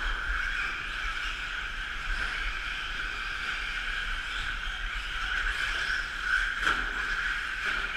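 Electric 4x4 short-course RC trucks racing around a dirt track, their motors and drivetrains making a steady, high-pitched whine. A single sharp knock about two-thirds of the way through.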